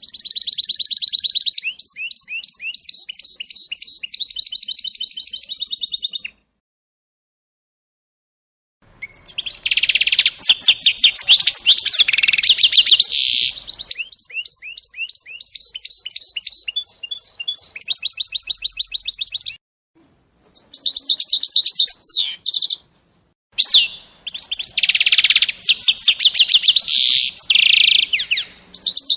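A small songbird singing long, high-pitched phrases of rapid trills and chirps, with a pause of a few seconds after the first phrase and short breaks near the end.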